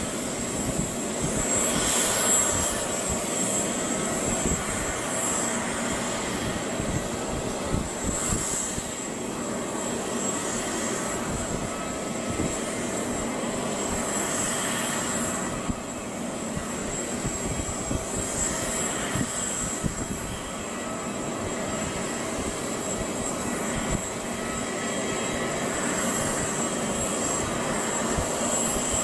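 Jet aircraft engine noise: a constant rush with a steady high-pitched whine over it, swelling a few times.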